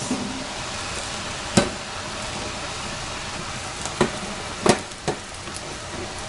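Steady hiss of food cooking on the stove: the pan of minced beef sizzling and the pot of pasta water boiling. A utensil knocks sharply against a metal pot four times, the first near the start and three close together past the middle.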